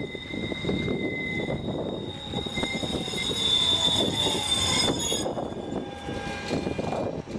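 FGV 3800-series tram running on curved track, its wheels squealing on the curve with a steady high-pitched whistle. The squeal grows louder as the tram nears and stops about five seconds in, leaving the rumble of the tram passing close by.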